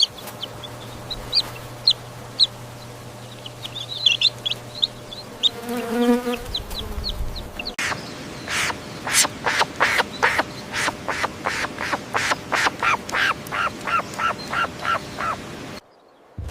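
Domestic fowl calling: scattered small high chirps at first, then a single call, then a fast run of short, sharp clucking calls at about two to three a second that stops abruptly near the end.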